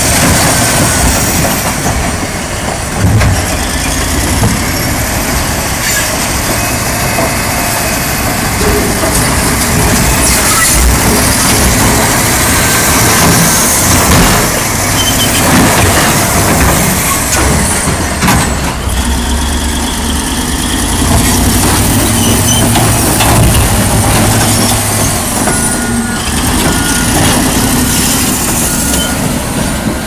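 Heavy machinery running loudly with continuous engine and mechanical noise, and a short run of evenly spaced beeps near the end.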